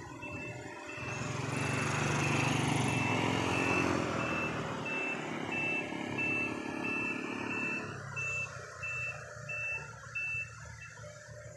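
A truck's reversing beeper sounds steadily, about three beeps every two seconds, and stops near the end. A motorcycle engine passes close, growing loud a second or so in and fading away by about eight seconds.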